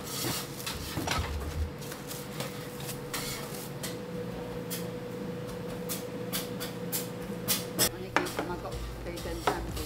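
Restaurant kitchen clatter: plates, utensils and plastic bags knocking and rustling in many short sharp knocks, over a steady faint hum and background voices.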